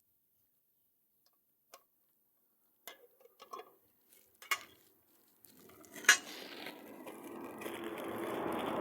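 A few clicks and knocks of handling, the loudest about six seconds in. Then an electric sewing machine motor starts running with a steady hum, building up in speed and loudness toward the end.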